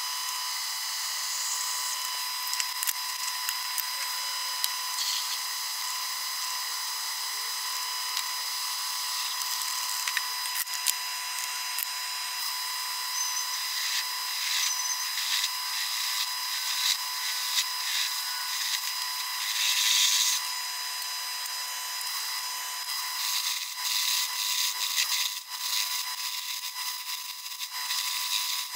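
Metal lathe running, its motor and drive giving a steady whine, while a drill and then a boring bar cut into aluminium held in a four-jaw chuck. The cutting adds irregular bursts of scraping noise, loudest about two-thirds of the way through and again near the end.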